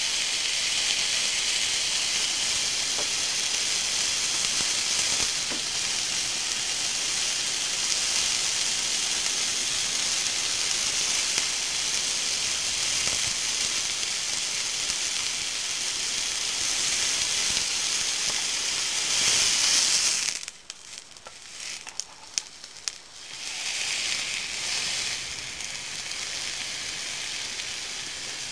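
Beef steak sizzling steadily on the hot top plate of a PlayStation 3 converted into a grill. About two-thirds of the way through, the sizzle breaks off with a few clicks as the steak is turned over, then comes back more quietly.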